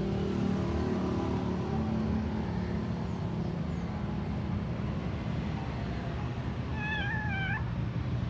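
A cat's wavering mating yowl, about a second long, near the end, from tomcats courting a female in heat. A steady low rumble runs underneath.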